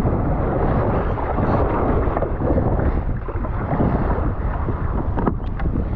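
Wind buffeting the microphone with a steady rumble, over water sloshing and splashing around a kayak in rough waves, with a few sharp splashes near the end.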